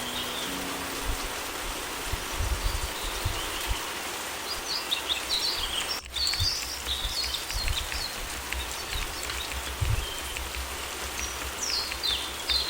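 Steady summer rain falling, with birds chirping over it in short bursts of quick, falling chirps, one cluster about a third of the way in and another near the end.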